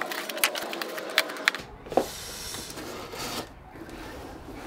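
A knife cutting through plastic packing strap and tape on a cardboard box: a rapid run of sharp clicks and scrapes, then after about a second and a half a brief squeak and a spell of rustling.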